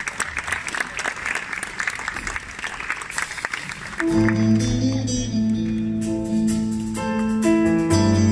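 Audience applauding, then about four seconds in a live band comes in with held chords over a steady low bass note, the opening of a song.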